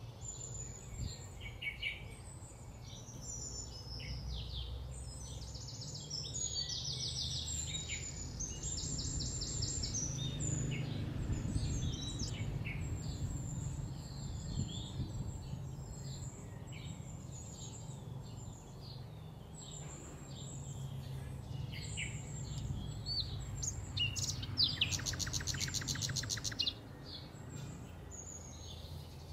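Several birds chirping and calling. Bursts of fast repeated notes come through, the loudest near the end, over a steady low rumble of outdoor background noise.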